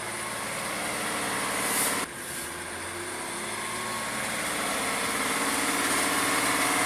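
Praga V3S army truck's air-cooled six-cylinder diesel running hard under load as the truck pushes through a deep mud pit, growing steadily louder, with a brief drop about two seconds in.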